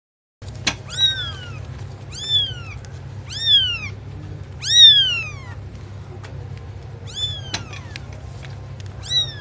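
Kitten meowing six times: short, high-pitched calls that each fall in pitch, the loudest about halfway through. Two sharp clicks come in between.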